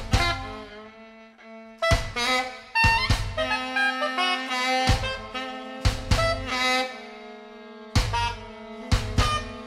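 Free-improvised jazz: saxophone lines over held bowed viola tones, punctuated by irregular drum strikes roughly once a second.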